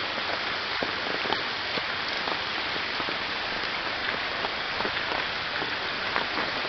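Steady rain falling through the leaves of fruit trees: an even hiss with many separate drops striking close by.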